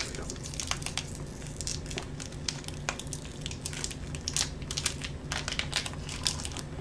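A Hi-Chew fruit-chew wrapper crinkling as it is unwrapped by hand, a run of small irregular crackles.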